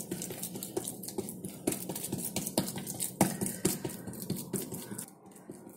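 Hands patting and pressing a ball of wet sabudana (sago) dough flat on a plastic sheet over a wooden board: irregular soft pats and plastic rustles, thinning out about five seconds in.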